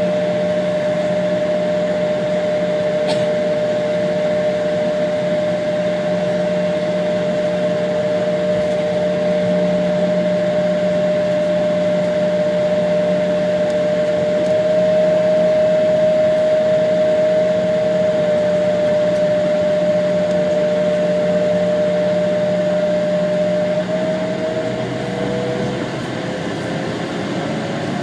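Embraer 170 jet engines idling with a steady hum and several steady whining tones. Near the end one tone starts to rise as the engines begin to spool up for take-off.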